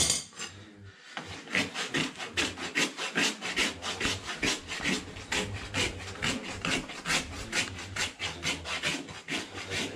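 A farrier's rasp filing a horse's hoof, in quick, even back-and-forth strokes of about three or four a second that start about a second in. There is a sharp knock at the very start.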